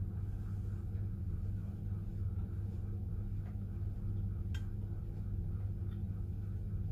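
Steady low hum, with a single sharp click about four and a half seconds in.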